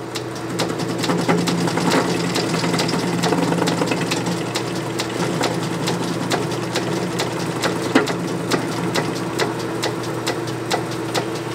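Metal lathe running under a hand-fed interrupted cut: the cutting tool strikes the part's flats and corners each revolution, giving a rapid, even rhythm of clicks over the lathe's steady hum.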